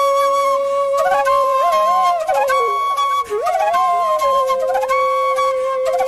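Background music: a flute playing a slow melody of long held notes that bend and slide in pitch.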